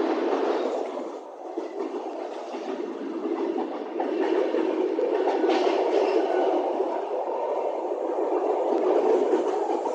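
Sintra-line electric commuter train heard from inside the carriage: steady rumble of the train running on the rails.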